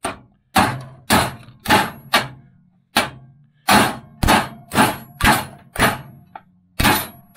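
Ball-peen hammer striking a 1½-inch, half-inch-drive socket that drives a bearing into a cast snowmobile chain case by its outer race: about a dozen sharp metallic blows, roughly two a second, each with a short low ring.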